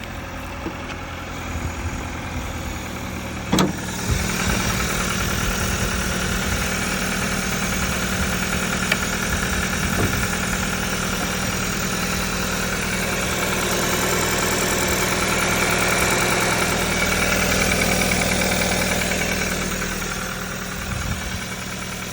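Volkswagen 1.5 TSI four-cylinder turbo petrol engine running at idle, with an abnormal engine noise that the owner is trying to show. A single sharp knock about three and a half seconds in, after which the engine sounds a little louder, and the level swells gently in the middle before easing off.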